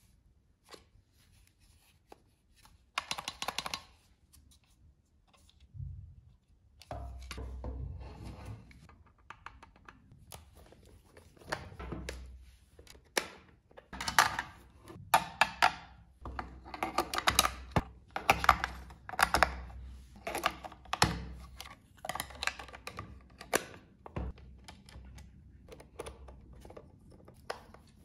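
Irregular plastic clicks, taps and scrapes as a small screwdriver works the battery-cover screw of a pistol-grip RC car transmitter and the cover is handled. The clicking is sparse at first and comes thick and fast through the middle.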